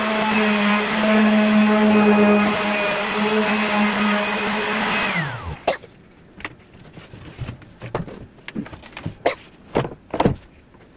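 Electric palm sander running steadily on a plywood panel, then switched off about five seconds in, its motor winding down. A few light knocks and taps follow while it is off.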